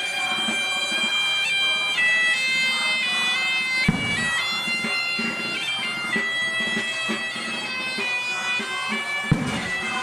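Bagpipe playing a melody in held, stepping notes. Two sharp bangs cut through it, about four and nine seconds in.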